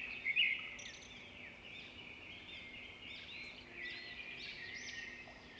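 Many small birds chirping at once, a dense chorus of short overlapping chirps and quick rising and falling whistles, with a few loud chirps right at the start.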